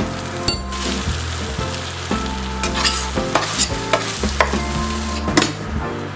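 Food sizzling in a hot frying pan while being stirred, with a utensil clicking and scraping against the pan several times.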